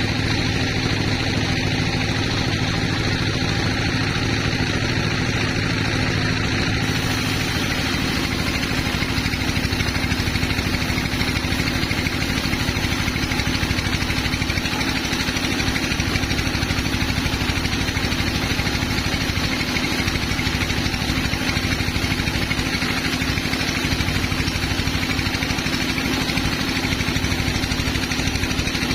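Sawmill machinery running steadily, an engine-like drone with a constant hum. About seven seconds in, a higher hiss joins and continues.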